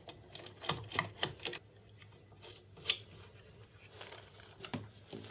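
Irregular light clicks and taps of plastic parts being handled: an acrylic dust hood and its silicone hose coupler pushed into place around a CNC router's spindle mount. A few clicks come close together about a second in, with single sharper ones near three and near five seconds.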